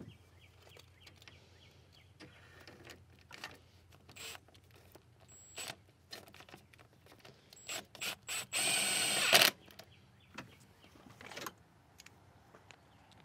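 Handheld power tool, a power ratchet or drill-driver, running bolts down in a few short bursts and then one longer run of about a second.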